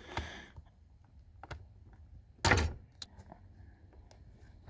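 Plastic wiring connector plugs being worked loose from a Jeep Cherokee XJ's airbag clock spring: a few light plastic clicks and one sharp clack about two and a half seconds in as a plug comes free.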